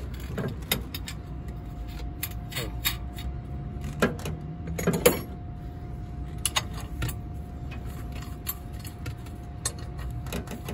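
Scattered metallic clicks and clinks of hands and a tool working on the exhaust-brake cylinder and its linkage on a truck's exhaust pipe. A faint steady hum sits underneath from about a second and a half in.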